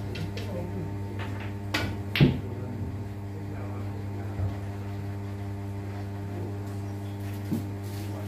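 A pool shot: two sharp clacks close together about two seconds in, the second the loudest, as the cue strikes the cue ball and billiard balls collide, with fainter ball knocks later. A steady electrical hum runs underneath.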